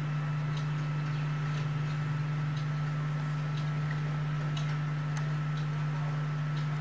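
Faint, irregular clicks of computer keys and a mouse over a steady low hum.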